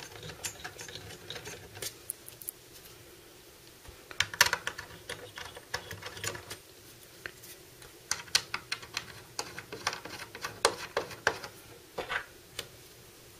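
Rapid little clicks and ticks of long cooler mounting screws being turned by hand into the backplate through a motherboard, coming in bursts about four seconds in and again from about eight seconds to near the end.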